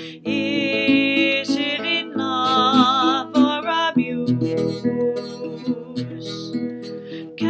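A woman singing long, wavering notes while playing an acoustic guitar.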